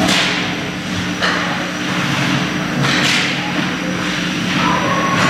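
Hockey skate blades scraping on the ice, three quick hissing scrapes over a steady low hum.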